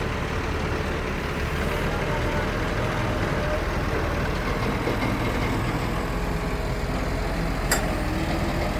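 Excavator's diesel engine running steadily with a low rumble, and one short sharp click near the end.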